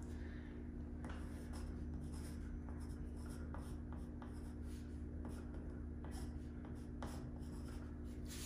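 Pencil writing on a wall: faint scratching strokes and light taps as numbers are written, over a steady low hum.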